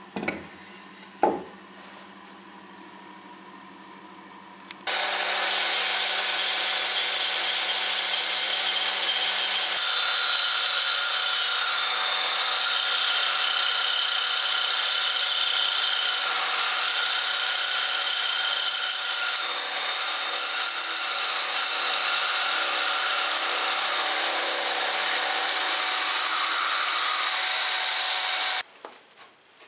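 Two sharp knocks as a thick plywood block is handled, then a bandsaw running and cutting a curve through the block, starting suddenly about five seconds in, steady and loud, and stopping suddenly near the end.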